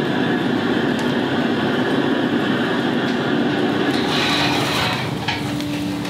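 Chicken stew boiling hard in a wide cast-iron cauldron-lid pan over a high-heat oak-wood fire, a steady dense bubbling and burning noise. About four seconds in it turns brighter, with sharp crackles and pops near the end.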